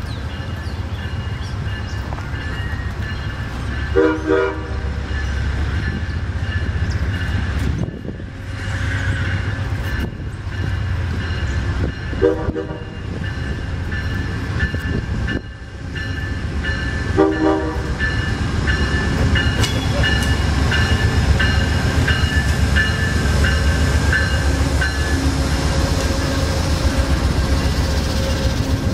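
Amtrak passenger train led by a GE Genesis diesel locomotive: its horn sounds three short blasts several seconds apart as it approaches, over a steady diesel and rail rumble that grows louder. The locomotive and cars then pass close by, wheels clattering on the rails.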